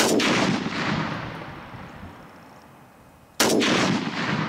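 Two rifle shots from a semi-automatic Saiga rifle in .308 Winchester, about three and a half seconds apart. Each sharp report is followed by a rolling echo that fades over a second or two.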